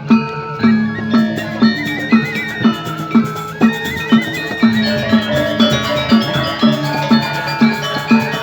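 Balinese gamelan playing: bronze metallophones ringing in quick overlapping patterns over a steady low beat about twice a second.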